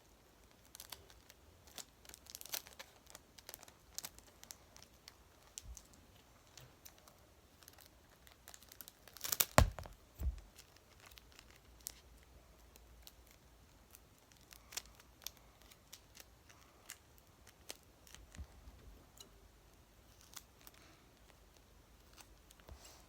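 Close-up paper and plastic crinkling with sticky tape being pulled and torn as a stuffed paper squishy is taped shut, in scattered short rustles and snaps. About nine and a half seconds in comes one much louder tearing rustle with a knock.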